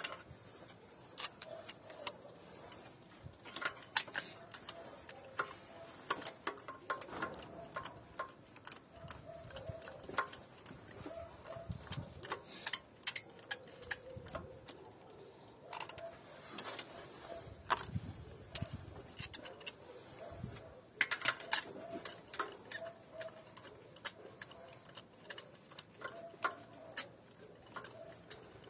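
Spark plug socket on a long extension, turned by hand in the plug well, giving off irregular metallic clicks and ticks as spark plugs are threaded into the cylinder head. One louder knock comes partway through.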